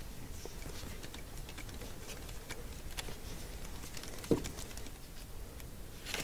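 Faint, irregular clicking of a quarter-inch ratchet with a T20 Torx socket backing out the bolts of a MAP/boost sensor, with one soft knock about four seconds in.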